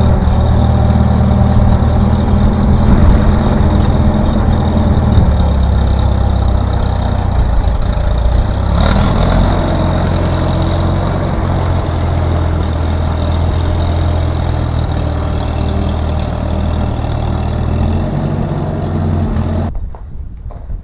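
A heavy engine running steadily at low revs, with a brief noise about nine seconds in. The engine sound cuts off abruptly near the end.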